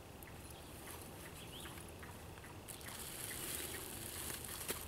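Faint rustling and scattered small clicks of a plastic bag being handled, turning brighter and hissier about halfway through, with one sharp click near the end.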